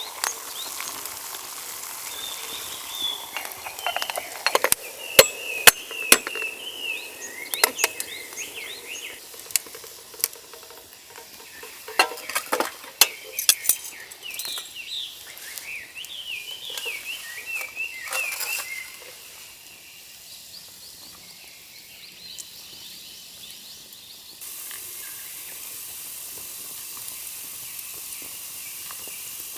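Camp cooking: utensils clicking and knocking against a pan or dishes over a sizzle, the clatter dense for the first two-thirds, then quieter; near the end a steady hiss comes in abruptly.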